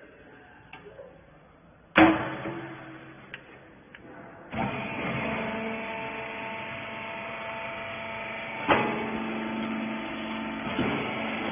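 Rag baling press: a loud metal clang with a short ring about two seconds in, then the machine's motor and hydraulic pump start up about halfway through and run with a steady hum, with two more sharp metal knocks near the end.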